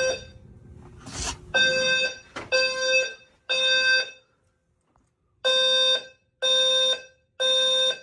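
Fire alarm horn sounder, set off by a panel drill, sounding the temporal-three evacuation pattern. It gives three half-second tones, pauses about a second and a half, then gives three more. There is a brief rustle about a second in.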